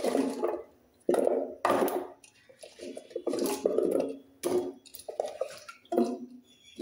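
Handfuls of raw elephant foot yam cubes dropped into an unglazed clay pot, a series of dull knocks and clatters. A hand scrapes through more cubes in a steel bowl between the drops.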